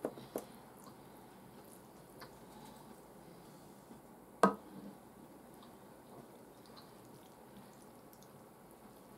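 Small clicks of chopsticks and tableware, then one sharp ceramic clink about four and a half seconds in as the teapot is picked up. Faint dripping of liquid being poured from the teapot into the ramen bowl follows.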